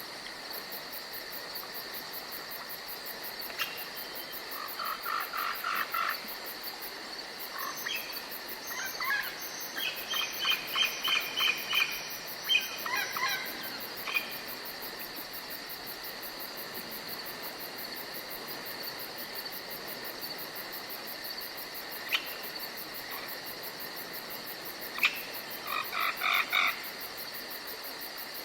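Steady high chirring of crickets or other insects, with several bouts of rapid pulsed frog calls. The longest and loudest bout is in the middle, and a shorter one comes near the end.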